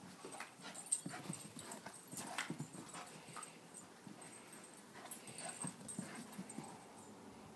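A dog running flat out in loops on a grass lawn: an irregular patter of thuds from its paws pounding the turf.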